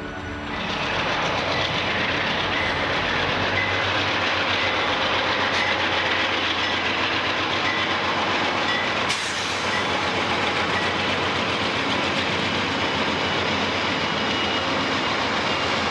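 Amtrak passenger train rolling past at close range, its diesel locomotives and then bilevel passenger cars: a steady rush of wheels on rail that comes up about half a second in.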